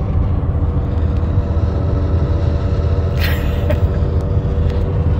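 Steady engine and road drone inside the cabin of a moving 2003 Chevrolet Impala, with a deep continuous rumble. A short hiss about three seconds in.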